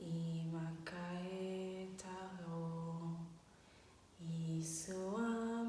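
A woman chanting light-language syllables in long, held notes, her voice stepping between a few steady pitches. A short break comes about three and a half seconds in, then a hissed 's' leads into the next phrase.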